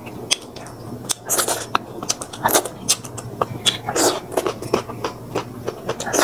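A person chewing and biting food close to the microphone, with irregular crunches, wet smacks and clicks, eating crispy fried fish with vegetables.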